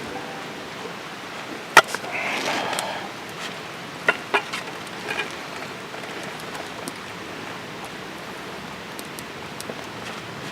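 Steady hiss with scattered sharp clicks and snaps, the loudest about two seconds in, followed at once by a short rustling burst.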